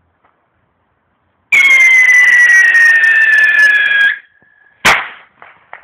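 A whistling firework going off with a loud, shrill whistle that falls slightly in pitch over about two and a half seconds, then one sharp bang followed by two smaller cracks.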